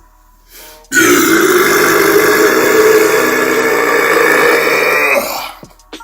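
A man's very long, loud burp, starting about a second in and lasting over four seconds, a rough, steady-pitched belch that trails off at the end.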